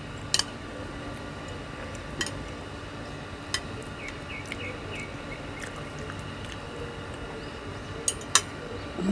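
Eating utensils clinking against a dish: a few short, sharp clinks spaced seconds apart, two close together near the end, over a faint steady background.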